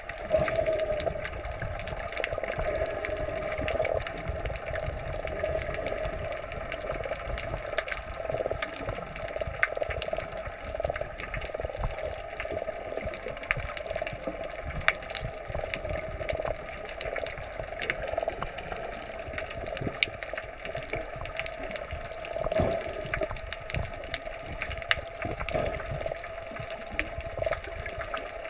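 Muffled underwater sound picked up by a GoPro in its waterproof housing: a steady hum over a wavering low rumble, with scattered faint clicks.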